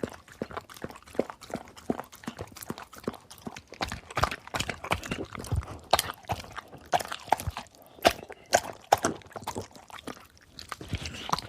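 A dog eating and drinking: a dense run of irregular wet clicks and smacks from its mouth, several a second.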